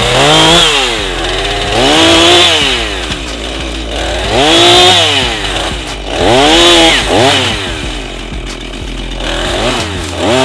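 Small gas chainsaw revving up and dropping back toward idle five or six times, about every two seconds, as it cuts through brush and thin branches.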